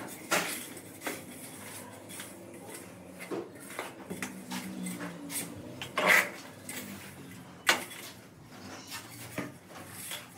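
A metal straightedge being dragged and scraped across loose sand-and-cement floor bedding mix, with scattered sharp knocks and clinks as the bar is set down and shifted. The loudest knocks come about six and almost eight seconds in.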